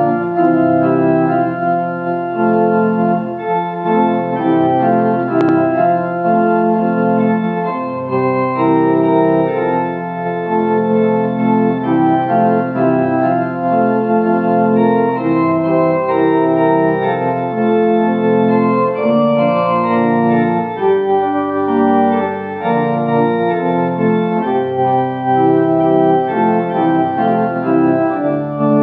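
Church organ playing a hymn in slow, sustained chords with a bass line underneath, the chords changing about once a second.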